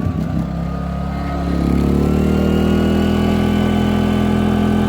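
Pulsar G2319N inverter generator's single-cylinder four-stroke engine speeding up under a sudden microwave load, its pitch and loudness rising over about two seconds, then running steady and pretty loud at the higher speed.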